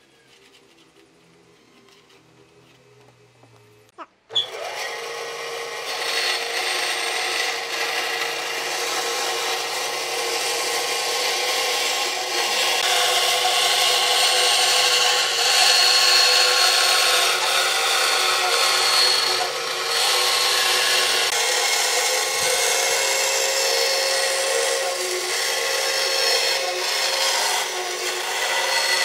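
Electric power tool starting about four seconds in, then running steadily on wood with a motor whine.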